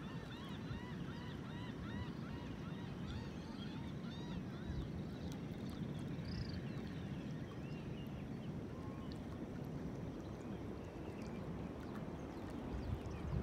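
Birds calling in quick, repeated, high chirping calls over a steady low rush of wind and water. The calls are dense for the first few seconds, then thin out to a few scattered ones.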